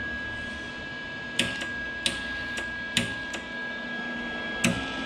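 Cooling fan of a Lincoln Easy-MIG 140 MIG welder running steadily with a constant high tone over a low hum, the machine powered up with no welding going on. Several sharp clicks sound over it.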